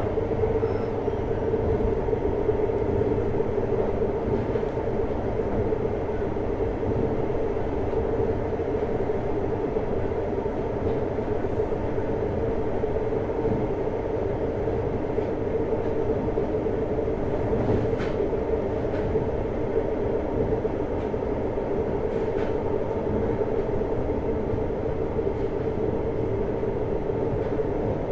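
JR Hokkaido 733 series 3000 subseries electric train (motor car MoHa 733-3107) running between stations. It gives a steady rumble with a constant mid-pitched hum.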